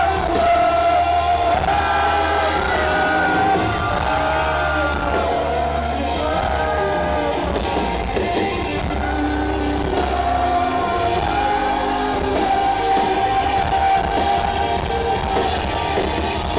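Live rock band performing a song with male lead vocals, holding long sung notes over electric guitar and a steady bass. It is heard from among the audience in a large hall, so the sound is roomy.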